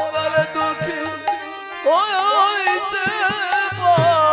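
Bengali kirtan music: a sung line ends on the word 'par', then the accompaniment carries on, with regular hand-drum strokes under a wavering melody that comes in loudly about two seconds in.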